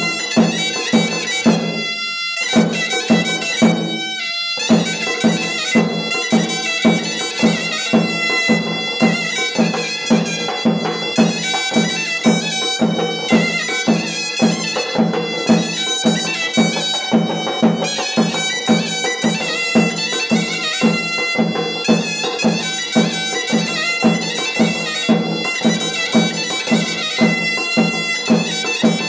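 Zurnas playing a shrill, reedy folk melody over a steady beat on a large double-headed drum (nağara) struck with sticks. The zurnas break off briefly about two and four seconds in while the drum keeps going.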